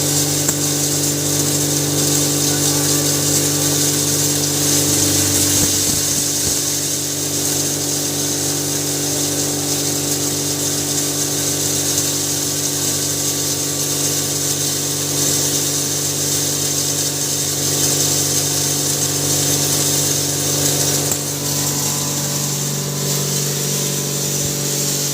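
Hammer-mill maize grinder running steadily: a constant machine hum under a strong high hiss, its low tone shifting slightly about six seconds in.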